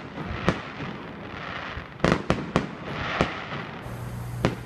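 Aerial fireworks going off: sharp bangs, one about half a second in, a quick run of several around two to three seconds in, and another near the end, with a softer hissing crackle between them.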